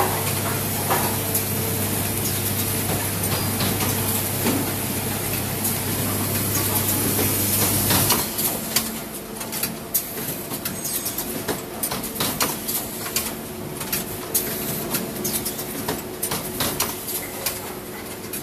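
Automatic coat hanger production machinery running: a steady hum with a high hiss that cuts off about eight seconds in, then an irregular clatter of sharp clicks and knocks from the mechanism.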